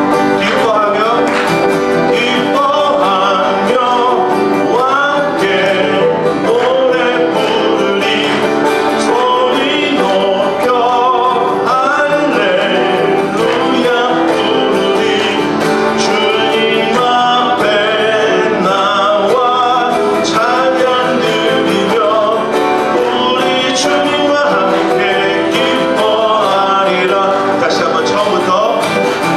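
A man singing a Korean praise song into a microphone while strumming an acoustic guitar.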